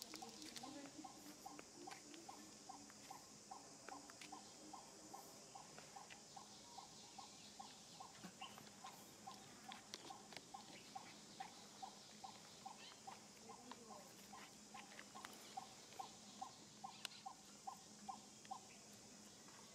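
Faint outdoor ambience: a steady high insect hiss, with a short call repeated evenly about two to three times a second that stops near the end.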